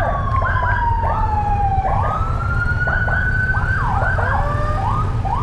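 Many Honda CB150X motorcycle horns beeping in short overlapping honks as a send-off signal, with a siren wailing through them, its pitch falling slowly and then rising. Idling motorcycle engines rumble underneath.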